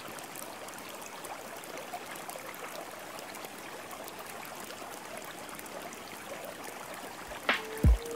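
Steady rushing water noise like a running stream, even and unbroken, with no music over it.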